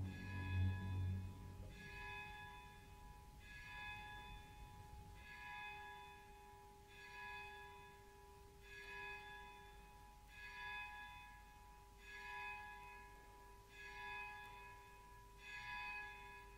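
Very soft orchestral music from an opera orchestra: a held chord with a faint high figure coming back about every second and a half to two seconds. There are some louder low notes in the first two seconds.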